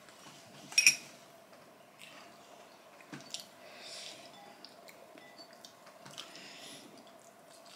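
Eating sounds at a table: soft chewing and squishy hand-eating noises from two people, with one sharp click a little under a second in and scattered small clicks. A faint steady hum runs underneath.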